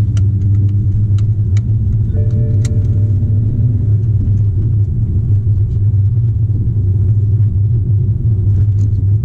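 Steady low rumble of a BMW sports car's engine and tyres, heard from inside the cabin while cruising slowly, with a few light clicks and rattles.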